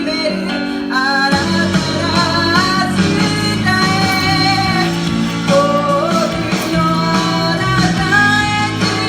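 A song being sung over a rock-style band accompaniment with guitar; the fuller low accompaniment comes in about a second in.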